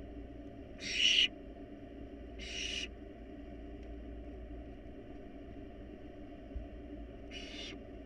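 Barn owl nestlings' rasping hiss calls: three short, half-second hisses, the first the loudest, over a steady low hum.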